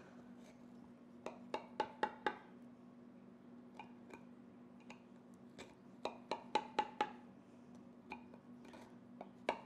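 A knife blade tapping and clicking against a glass baking dish while cutting soft cookie bars, in two runs of quick taps, some with a short ring.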